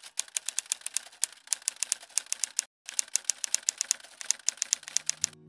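Typewriter typing sound effect: quick, sharp key clicks, several a second, with a short pause just before three seconds in. Low steady music tones come in faintly near the end.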